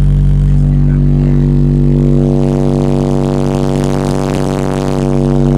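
Car audio system with two 10-inch Sundown Audio Team NEO subwoofers on a Dynamic Audio DA-7000.1 amplifier playing a loud, steady, held low bass note. It grows buzzier from about two seconds in.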